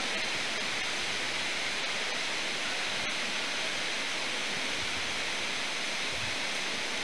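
Steady, even hiss with no speech, strongest in the upper range, and a faint tick about three seconds in.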